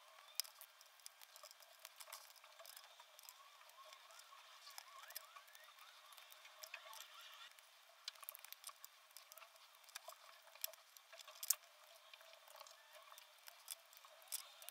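Faint, irregular sharp clicks and snips as scissors cut through thin wooden popsicle sticks, with one louder snap about two-thirds of the way through.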